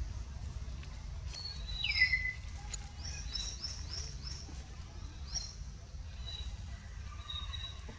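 Small birds chirping: short high chirps, a quick run of them about three seconds in, and one louder falling call about two seconds in, over a steady low rumble.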